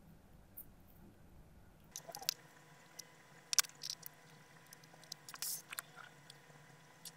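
Short wet squishes and crackles of a cotton swab with white polishing paste working over a wet coin, in scattered strokes starting about two seconds in.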